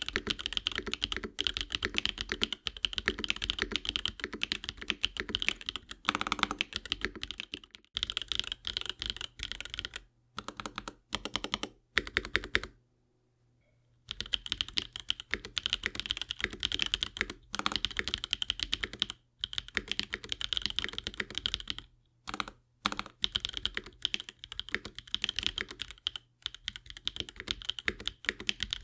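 Fast continuous typing on a Mojo 68 mechanical keyboard with Rama Ducks switches, dense runs of key clicks with a few short pauses. PBT keycaps for the first several seconds, then ABS keycaps, the lightest and least thocky of the sets.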